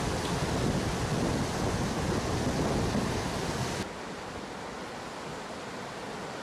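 Rushing floodwater of a swollen river, a steady noisy rush. About four seconds in it drops suddenly to a quieter rush.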